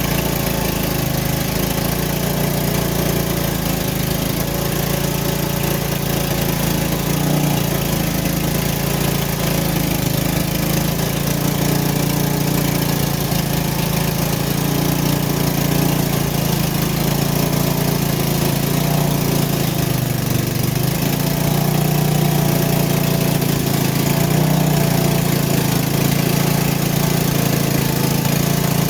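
Small gasoline engine of a Frontier OS23 portable sawmill running steadily at a constant speed.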